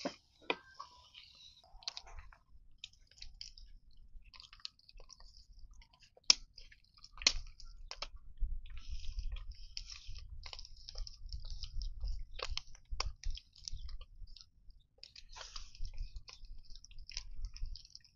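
Pork pieces frying in a pan, the fat sizzling with scattered pops and crackles. Two sharp pops about six and seven seconds in are the loudest. A low rumble runs underneath from about seven seconds on.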